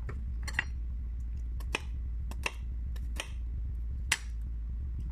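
Crisp crunches of raw onion being chewed close to the microphone: about five sharp crackles spread over the few seconds, the last one the loudest.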